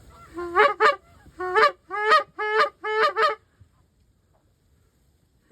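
Loud goose honks, about six in quick succession, each breaking upward in pitch, that stop about three and a half seconds in.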